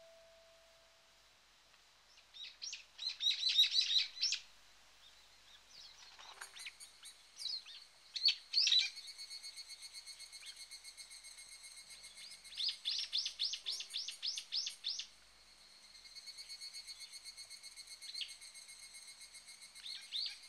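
Small birds chirping and singing in fast high trills. A steady, fast-pulsing high buzz comes in about nine seconds in and runs under them.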